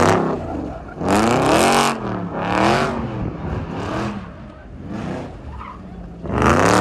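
Dodge Charger doing donuts: the engine revs up and falls back in repeated surges, about one a second, while the spinning rear tires screech and smoke. The screeching is loudest at the peaks, a second in and near the end.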